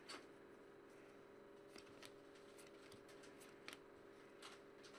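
Faint flicks and slides of trading cards being flipped through by hand: a scattering of short soft clicks, the strongest just after the start, over a steady faint hum.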